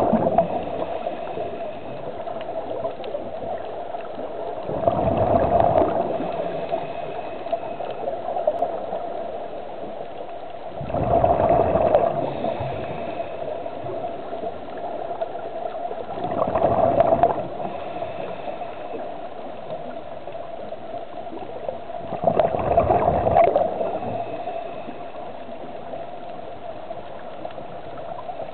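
Scuba diver breathing through a regulator, heard underwater: a gurgling rush of exhaled bubbles about every six seconds, five times, over a steady hum.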